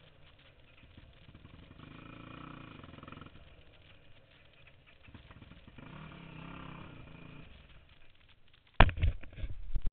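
Faint engine sound swelling up twice and dying away, then a sudden loud run of knocks and rattling near the end.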